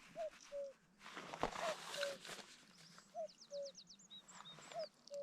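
Common cuckoo calling its two-note cuck-oo, the second note lower, four times at about one-and-a-half-second intervals. A small bird's rapid high chirping comes in about three seconds in, and there is a patch of rustling noise about a second in.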